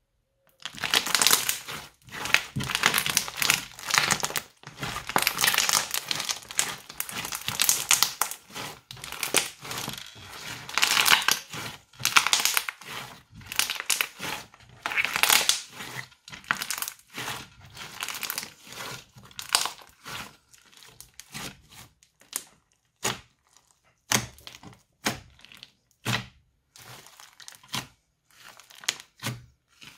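Crunchy slime packed with small beads being squeezed and kneaded by hand, crackling and crunching densely. In the last third it thins out to separate short pops and clicks.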